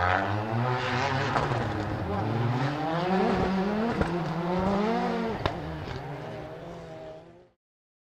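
Two 600 hp Audi S1 RX rallycross cars' turbocharged engines revving hard through a corner, their pitch rising and falling. Two sharp bangs come about a second and a half apart near the middle, then the sound fades out and stops shortly before the end.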